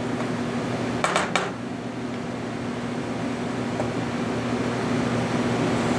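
Steady mechanical hum of kitchen ventilation or equipment, with a low steady tone. About a second in there are a couple of short scrapes.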